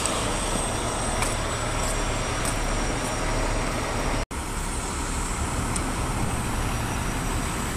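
Heavy-duty diesel tow trucks idling, a steady low rumble with hiss, broken by a brief audio dropout about four seconds in.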